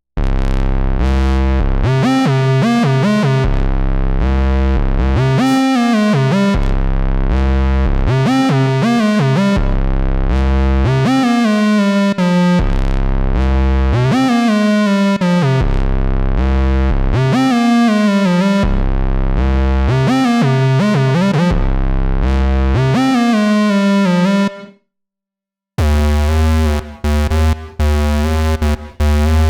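Vermona Mono Lancet '15 monophonic analog synthesizer played dry: a continuous phrase of fat, low notes with pitch slides between them. Near the end it stops for about a second, then a new patch starts with rapid, short staccato notes.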